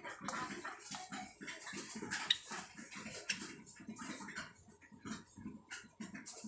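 White Java sparrows pecking at soft egg food in a plastic tub: a quick, irregular run of light ticks and taps as their beaks strike the food and the tub.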